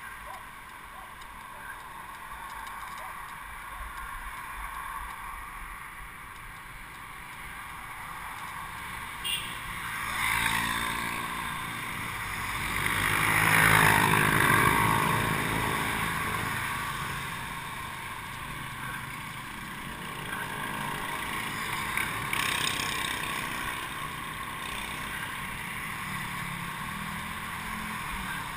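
Road traffic heard from a moving bicycle: steady wind and road noise, with a motorcycle engine passing close alongside and swelling to its loudest about halfway through before fading away.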